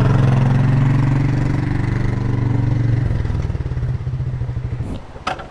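Dual-sport motorcycle engine running steadily under way, then easing off about three seconds in and dying away near the end. A brief sharp click follows.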